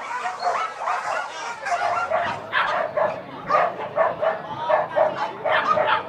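Dog barking and yelping repeatedly, two or three short barks a second.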